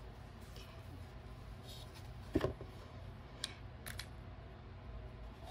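Quiet handling of items in a cardboard box: a soft knock a little over two seconds in, then two light clicks about a second later, over a low steady hum.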